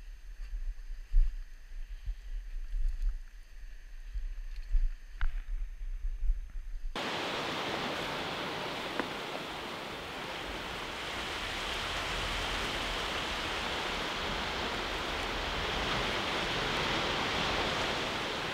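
Low rumbling thumps on the microphone for about seven seconds, then a sudden change to the steady rushing of sea surf breaking on a rocky shore.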